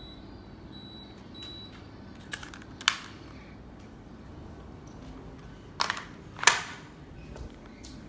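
Midea ceiling cassette air conditioner beeping, short high beeps three times in the first two seconds as it takes remote-control button presses. Then sharp knocks, one about three seconds in and two around six seconds in, the last the loudest.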